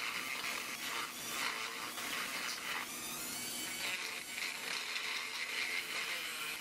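Handheld rotary tool running at high speed, its burr grinding out a drilled hole in a small metal bolster block clamped in a vise: a steady high-pitched grinding hiss.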